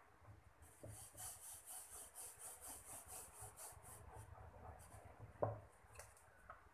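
A hand rubbing and working chapati dough on a metal plate: a faint rhythmic rubbing at about four strokes a second, which stops after about four and a half seconds. A single knock follows about five and a half seconds in, then two light clicks.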